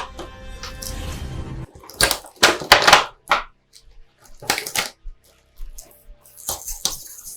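Background music that stops about two seconds in, then clicks, knocks and crinkles of plastic packaging and PVC figure pieces being handled and lifted out of a box.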